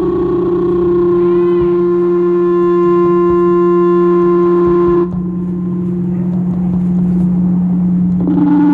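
Sustained drone of steady pitched tones from a fan-and-pipe wind performance instrument: a low hum runs throughout under a higher tone with overtones. The higher tone cuts off suddenly about five seconds in and comes back shortly before the end, leaving the low drone alone in between. A brief warbling chirp sounds about a second and a half in.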